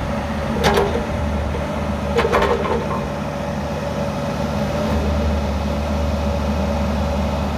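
Bobcat E45 mini excavator's diesel engine running steadily while the arm and bucket move under hydraulic power. Two short knocks come about a second and two seconds in, and the engine gets a little louder about five seconds in.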